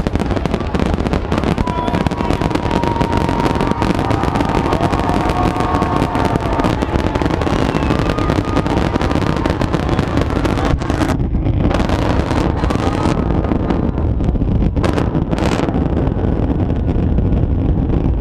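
Large fireworks display going off in a dense, continuous barrage of booming and crackling, heard from within a crowd. A few steady whistling tones sound through the first few seconds.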